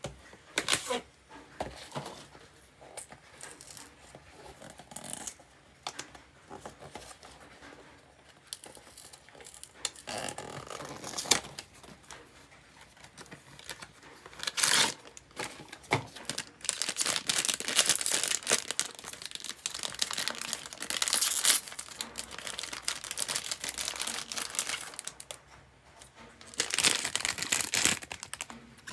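Hands opening a small cardboard blind box and its foil wrapper: scattered rustles and clicks of the box at first, then long, dense crinkling and tearing of the foil in the second half, with another burst near the end.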